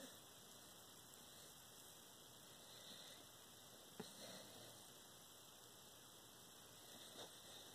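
Near silence: steady background hiss, with a sleeping corgi's faint breaths and sniffs. One click about four seconds in.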